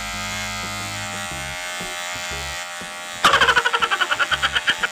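Cordless Wahl Magic Clip hair clipper running with a BaByliss gold blade fitted without its plastic piece, at first a steady buzz. About three seconds in, a louder, rapid rattling chatter of about eight pulses a second sets in: the loose-fitting blade clattering because the plastic piece is missing.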